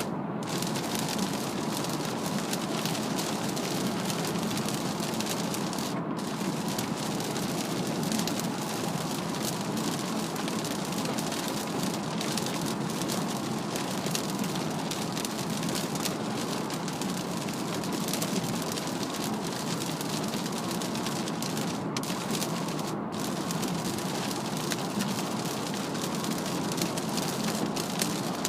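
Heavy rain pelting a moving car's windshield and roof, heard from inside the cabin as a steady dense patter over tyre and road noise on a wet expressway.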